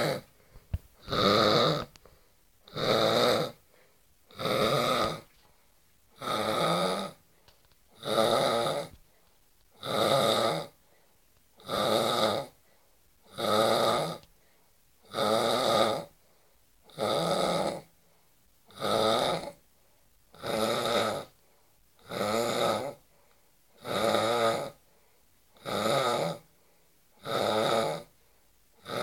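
A man snoring in deep sleep, a harsh, jackhammer-like snore repeating steadily about once every two seconds, each lasting just under a second with quiet gaps between.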